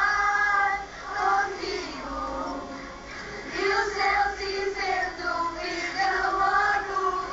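A group of children singing together in chorus, with long held notes, heard from a television's speaker.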